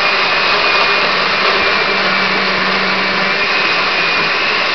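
Countertop blender running steadily, puréeing a mango, habanero and vinegar mixture into a smooth sauce. A loud, even motor noise carries a steady high whine.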